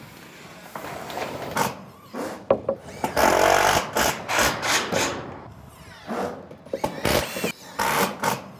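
Roofing screw gun driving screws into steel roof panels in several short bursts, the longest about three seconds in, with sharp knocks between.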